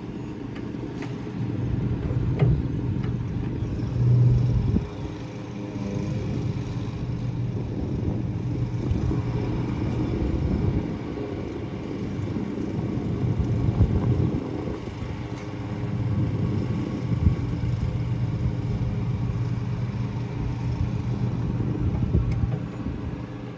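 Ford 6.7 Power Stroke diesel idling steadily, with irregular clunks and rattles from work at the truck bed over it.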